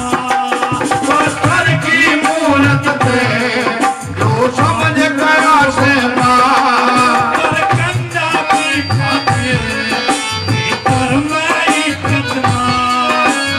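Instrumental interlude of a North Indian folk song: a hand drum plays a steady rhythm under a melody instrument's winding, ornamented tune.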